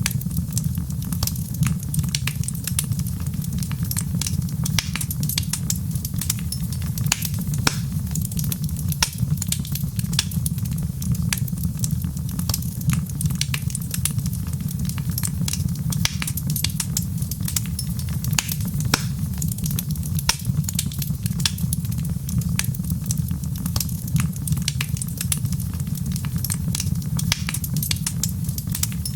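Wood fire crackling, with many small irregular pops and snaps over a steady low rumble.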